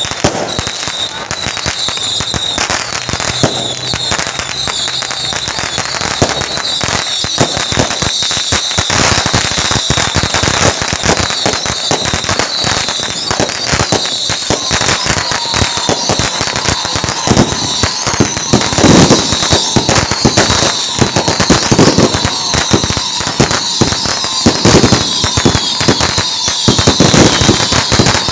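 Strings of firecrackers going off continuously, a dense rapid crackle of pops that gets louder in the second half, with a steady tone joining about halfway through.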